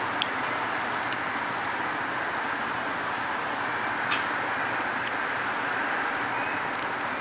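Steady city traffic noise, with a few faint clicks.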